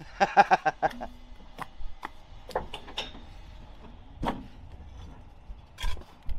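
A man's short laugh, then scattered sharp knocks and clicks of clay bricks and a steel brick trowel being handled while bricks are laid on a gable.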